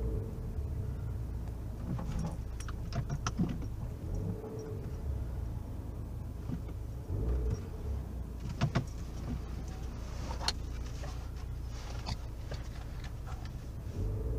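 Fiat Toro Flex pickup driving, heard from inside the cabin: steady low road and engine rumble with a few sharp clicks and knocks, a cluster about two to three seconds in and more around nine to twelve seconds. This is the strange noise the pickup makes when braking and accelerating, which sounds like a loose part and whose cause has not been found.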